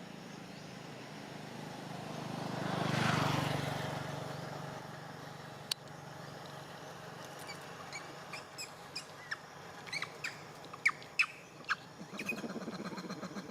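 A passing vehicle swells and fades about three seconds in. It is followed by a run of short, high, falling bird chirps, and near the end a rapid, pulsing insect trill starts up.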